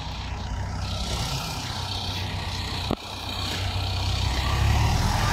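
Universal 640V tractor's diesel engine running steadily and growing louder. A single sharp click comes about three seconds in.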